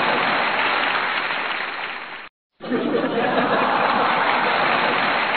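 Crowd laughing, chattering and applauding in an even noisy wash. It fades away about two seconds in, cuts out briefly, then starts again.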